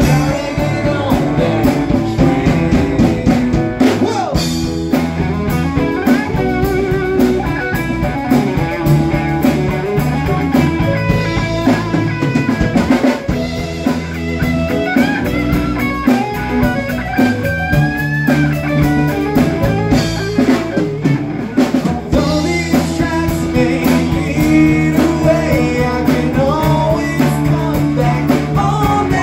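Live rock band playing a blues-rock groove: electric guitar, bass guitar and drum kit together.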